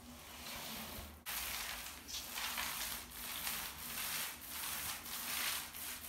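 Paint roller on an extension pole being rolled over a wall, a rasping, sticky rubbing noise in repeated strokes about twice a second.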